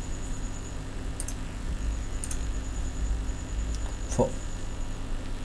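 Steady low background rumble with a faint hum and a thin high whine. A few small clicks come early, and a single short knock about four seconds in.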